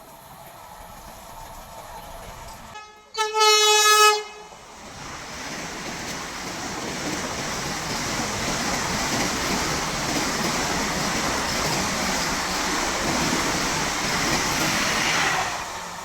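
Vande Bharat Express electric trainset approaching: one horn blast a little over a second long about three seconds in, then a steady loud rush of the train passing at high speed, which drops away suddenly near the end.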